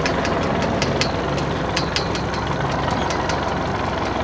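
Tractor engine running steadily while it drives a borewell pump through a shaft, with irregular light ticks over the top; the pump is not yet delivering water.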